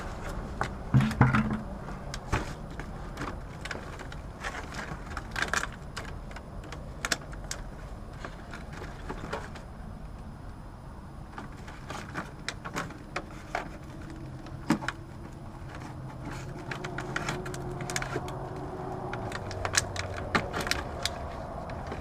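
Small metal parts and tools being handled while swapping an air conditioner's run capacitor and its wire terminals: scattered metallic clicks and clinks, some quicker runs, over a steady low hum.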